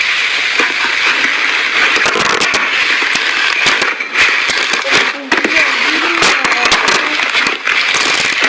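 Slime being pressed and worked by hand, giving a dense run of crackling, popping clicks over a squishy hiss.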